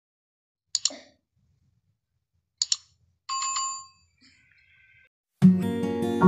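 Subscribe-button sound effect: two sharp clicks, then a short bell chime for the notification bell. About five seconds in, louder acoustic guitar music starts with a strummed beat.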